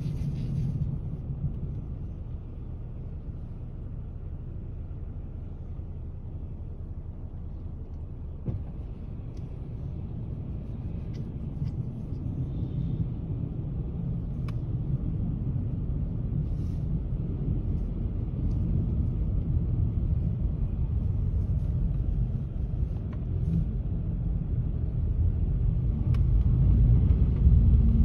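Low, steady rumble of a car heard from inside the cabin, with a few faint clicks. It grows louder over the second half as the car moves off along a snow-covered road.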